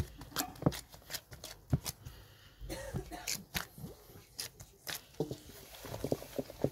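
Gloved hands kneading a stiff glutinous-rice-flour dough in a bowl: irregular quick pats, slaps and taps.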